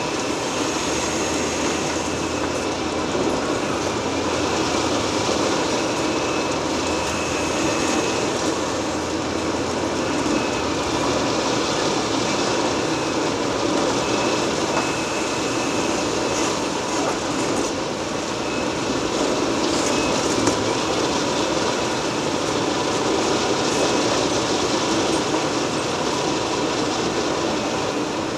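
Liebherr R 980 demolition excavator at work: engine and hydraulics running steadily under dense working noise, with thin high squeals coming and going.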